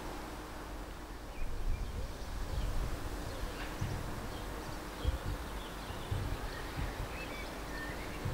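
Small birds chirping here and there over an uneven low outdoor rumble that swells about a second and a half in.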